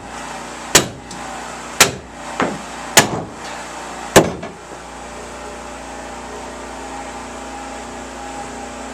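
Five sharp hammer blows, about a second apart, that stop after about four seconds, leaving a steady low background hum.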